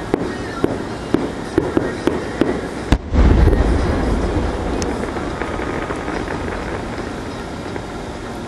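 Aerial fireworks shells bursting: a string of sharp bangs about two a second, then a much heavier boom about three seconds in, followed by a rumble that slowly fades.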